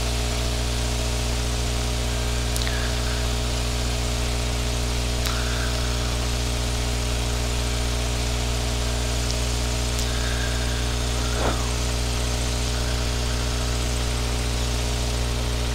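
Piper Pacer PA-22/20-135's four-cylinder Lycoming engine and propeller droning steadily in the cabin, throttled back on a short-field landing approach. A few brief clicks sound over the drone.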